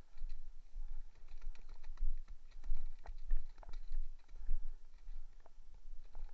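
An irregular run of sharp clicks and knocks, uneven in strength, with heavy low thumps on the microphone.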